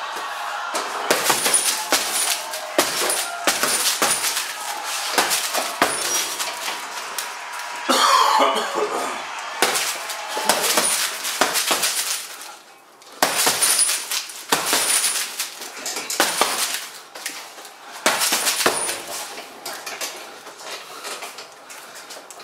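Boxing gloves striking a heavy bag made of stacked car tyres wrapped in plastic film: quick flurries of hard punches, pausing briefly a little after halfway and landing softer near the end.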